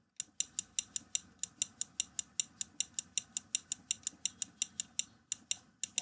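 Computer mouse clicking in a quick, even run, about five clicks a second.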